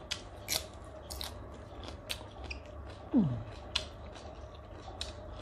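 Close-up crunchy chewing of raw green vegetable stalks, a run of short sharp crisp crunches. About three seconds in there is a brief low vocal sound falling in pitch.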